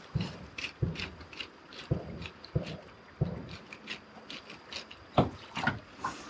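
Irregular hollow knocks and sharp light clicks, typical of fishing gear being handled in a metal boat.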